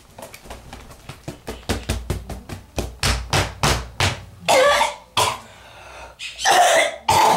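A boy's voice close to the microphone: a quick run of short, sharp breathy bursts, about five a second and growing louder, then several loud yells in the second half.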